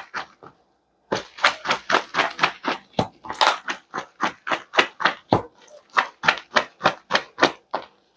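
Hands squishing and squelching grated okra in warm water, about four wet squelches a second after a short pause near the start, as the okra turns slimy and draws.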